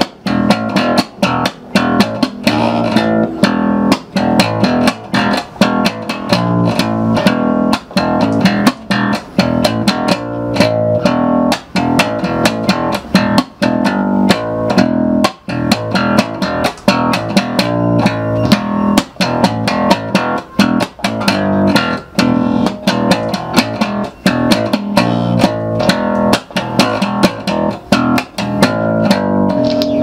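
Electric bass guitar played slap-style, thumb slaps and popped strings in a busy, continuous riff of sharp percussive notes, heard through a Marfill 20B bass combo amplifier with its high, high-mid, low-mid and low controls all set at 5.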